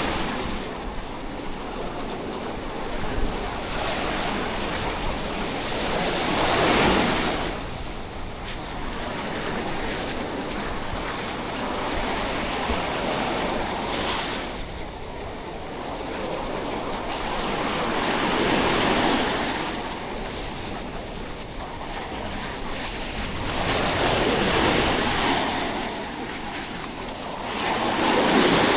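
Sea waves breaking on a beach, a swell of surf every five or six seconds rising and falling over a steady wash, with some wind on the microphone.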